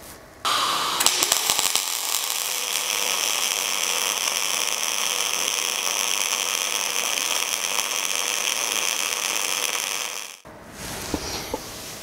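MIG/MAG welding arc from a PATON VDI-250P inverter feeding 1.2 mm wire at 19 volts into 2 mm steel, crackling steadily for about ten seconds. It strikes about half a second in and cuts off suddenly near the end.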